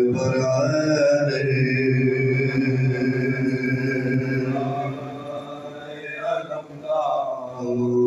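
A man's voice chanting a noha, a Shia lament, unaccompanied through a microphone and sound system, holding long drawn-out notes. The voice falls quieter about five seconds in and rises again near the end.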